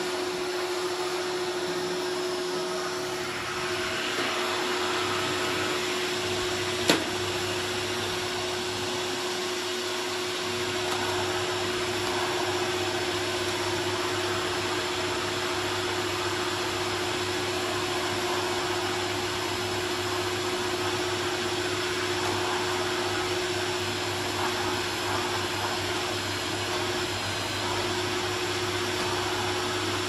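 Canister vacuum cleaner running steadily as it is pushed over the floor: an even rushing noise with a steady hum. A single sharp click comes about seven seconds in.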